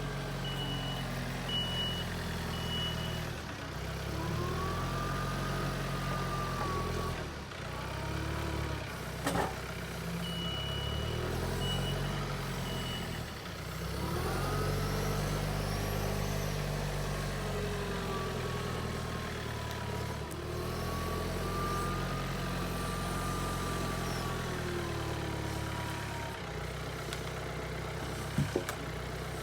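John Deere 4044R compact diesel tractor running and moving, with a whine that rises and falls in pitch as it speeds up and slows down. A beeping alarm sounds briefly near the start and again about ten seconds in, and there are single knocks about nine seconds in and near the end.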